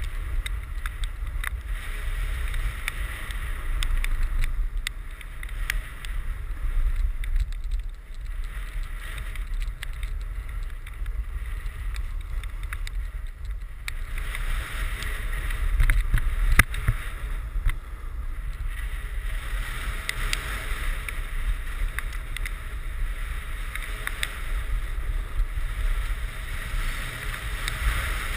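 Snowboard sliding down a groomed slope, its base and edges scraping over the snow in a hiss that swells and fades, with wind rumbling on the action camera's microphone.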